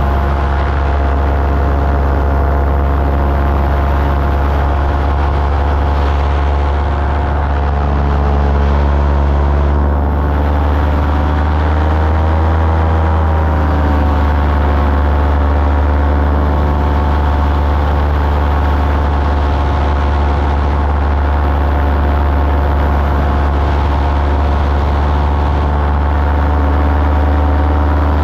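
Small aircraft engine running steadily in flight, heard loud from on board, with a brief rise and fall in pitch about twelve seconds in.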